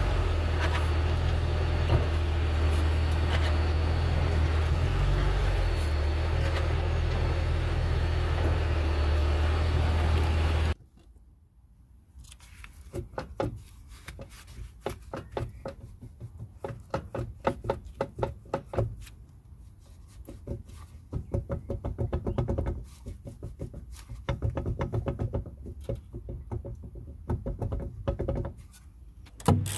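Drivetrain of a Mercedes ML500 (W164) running with a loud, steady low drone at the rear differential, the noise being diagnosed from a worn-out differential. It cuts off suddenly about eleven seconds in. After that come quieter, irregular knocks and clunks as a gloved hand grips and rocks the differential housing.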